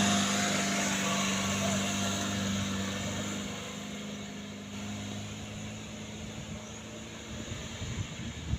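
Container truck's diesel engine running under load on a steep climb, a steady low drone that grows gradually quieter as the truck moves away.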